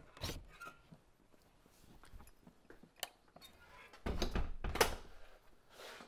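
A door being opened and then shut. The loudest part is a heavy thud about four to five seconds in, with a few sharp clicks before it.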